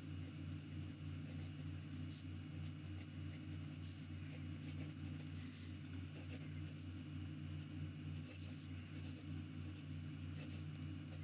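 Fine conical steel nib of a Wing Sung 601A fountain pen writing on lined notebook paper: faint, steady scratching strokes from the nib's slightly toothy feedback, over a steady low hum.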